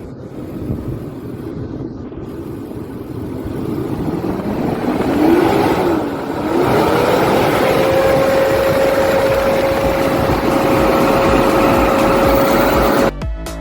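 Nissan Patrol Y62 V8 engine revving up and held at high revs, with a loud rushing from the engine-driven cooling fan: the high fan noise typical of a fan clutch that is locking up. The pitch climbs over a few seconds, wavers, then holds steady until it cuts off abruptly near the end.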